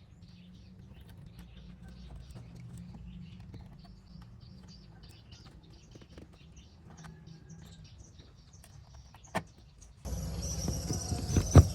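Faint low hum with scattered small clicks and ticks, a sharp click about nine seconds in, then a louder steady mechanical sound starting about ten seconds in.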